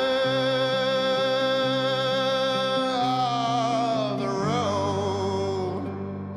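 Background music: a slow song in which a male voice holds one long note for about three seconds, then sings a short falling phrase that fades near the end, over instrumental backing with a stepping bass line.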